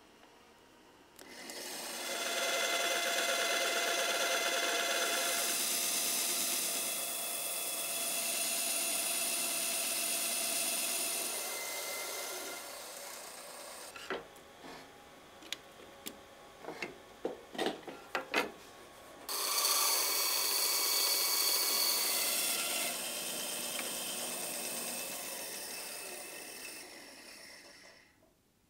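Bench band saw cutting across an ash board: two long cuts, each a steady rasp with a whine from the blade. Between them, a few seconds of sharp clicks and knocks as the board is shifted on the table.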